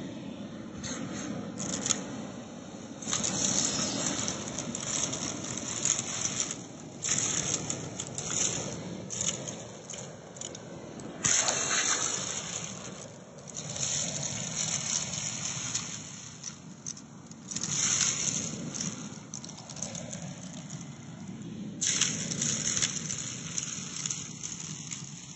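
Vacuum cleaner hose sucking up bath salt and rice grains from carpet: the grains crackle and rattle up the hose in irregular spells of a second or two over the running vacuum.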